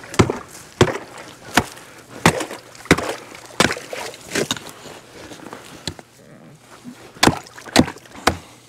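Hatchet chopping at ice over a trap hole: a dozen or so sharp strikes, roughly one every half to three-quarters of a second, with a short lull past the middle.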